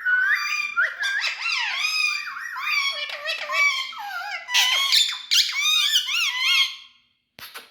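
Indian ringneck parrot chattering in a rapid run of high-pitched, squeaky calls that rise and fall in pitch. The calls stop about a second before the end, leaving a few short clicks.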